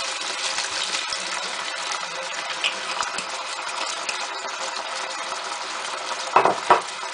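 Wine sizzling and bubbling steadily as it hits a hot pan of browning beef chunks, reducing. Two brief knocks near the end.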